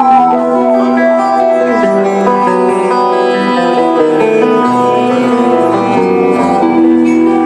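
Live amplified band music through a concert PA: an electric guitar plays slow, held lead notes over sustained keyboard chords, sliding down in pitch just as it begins.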